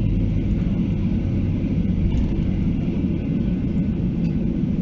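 Boeing 737-800 heard from inside the cabin while taxiing after landing: its CFM56-7B engines at idle under a steady low rumble.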